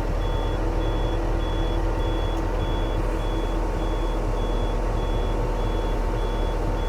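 Yanmar diesel machine running steadily, with its high-pitched warning beeper sounding about twice a second.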